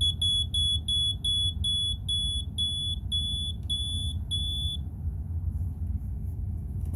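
BRK 86RAC second-generation smoke alarm sounding its test on battery power: a rapid run of about a dozen short, high-pitched beeps, roughly three a second, that stops about five seconds in. Its battery is nearly dead, which makes the alarm act up.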